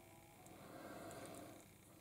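Near silence: faint room tone, with a soft, faint rustle in the middle.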